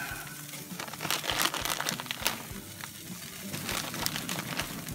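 Plastic bag of shredded cheese crinkling in a run of quick, irregular rustles as a hand reaches in and pulls out pinches of cheese.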